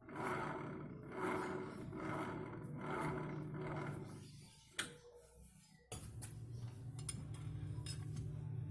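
A power tool running in four short bursts about a second apart, then a sharp click, then running steadily from about six seconds in.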